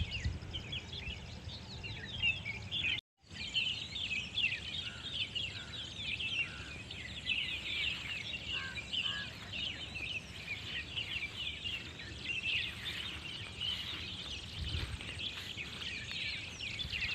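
A dense chorus of many small birds chirping and chattering at once, over a low rumble, with a brief cut-out about three seconds in.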